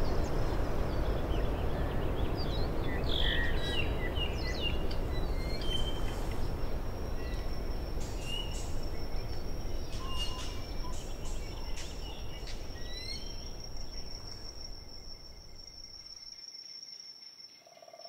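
Rainforest ambience: assorted bird calls, chirps and whistles over a low steady background that fades away about 16 seconds in. A steady high-pitched insect trill sets in about halfway through.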